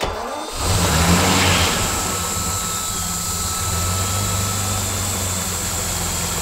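Lamborghini LM002's carburetted V12 starting up. The revs rise briefly in the first second or so, then it settles to a steady idle with the hiss of its intakes, its two banks of carburettors just rebalanced.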